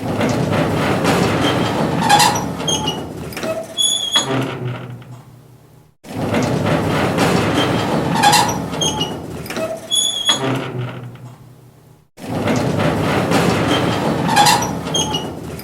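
A metal gate opening, played three times in a row, about six seconds apart. Each time it starts suddenly with a grinding, rumbling scrape of metal, has a few short high squeaks partway through, and then fades away.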